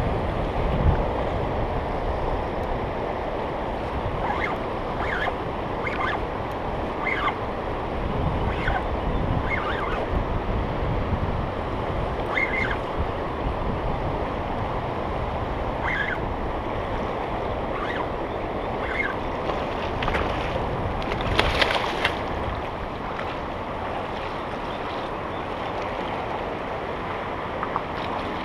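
River rapids rushing steadily, with some wind on the microphone. A series of short high chirps comes every second or few through the first two-thirds, and there is a brief burst of louder noise about 21 seconds in.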